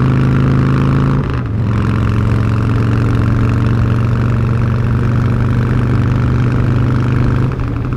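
Cruiser motorcycle engine running steadily at road speed while riding. The engine note dips briefly about a second in and again near the end.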